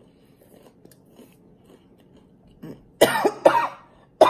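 A woman coughing hard several times in quick succession, starting about three seconds in, after a quiet stretch of faint chewing. The fit follows a bite of hot jalapeño, the spice catching in her throat.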